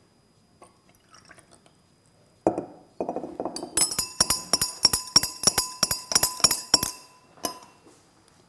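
Clear solution poured into a glass beaker, then glass stirring rods clinking rapidly against glass beakers, about five ringing clinks a second for some three seconds, as the iodine clock reagents are mixed.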